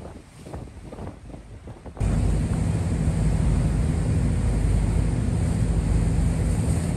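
Quiet background with faint scattered knocks, then about two seconds in a sudden switch to the loud, steady low drone of a harbour ferry's engine under way, with wind buffeting the microphone and water rushing past.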